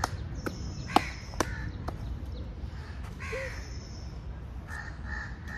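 Crows cawing several times, with a few sharp clicks in the first two seconds, the loudest about a second in, over a low steady background rumble.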